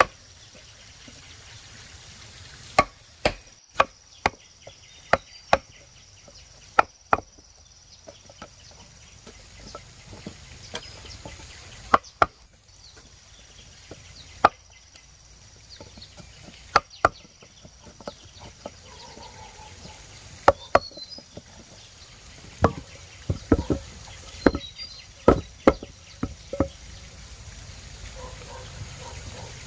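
Sharp chopping strikes, about twenty, spaced irregularly and sometimes in quick pairs, with a few faint animal calls in the background.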